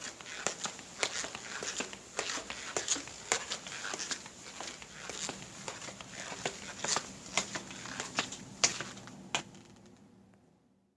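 Footsteps: a run of sharp steps with many smaller clicks between them, fading out near the end.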